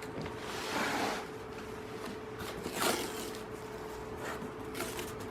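Cardboard box and packaging being handled: two brief scraping, rustling sounds, about a second in and near three seconds, with small knocks between them over a faint steady hum.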